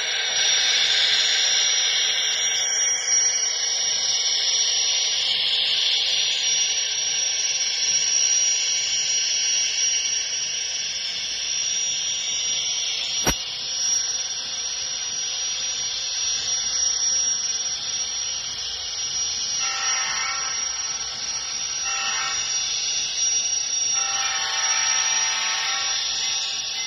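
ScaleTrains model of the Union Pacific GTEL 8500 HP gas-turbine locomotive running with its sound system playing a steady turbine hiss. A single sharp click comes about halfway through. Near the end a horn sounds in three blasts, the last one the longest.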